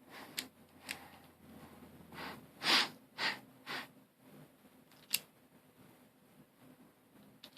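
Plastic pieces of a V-Cube 7 clicking and rasping as its layers are turned by hand: a few sharp clicks and a quick run of short scraping turns in the middle.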